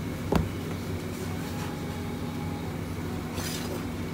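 Steady hum of noodle-factory machinery running, with one sharp knock about a third of a second in and a short hiss near the end.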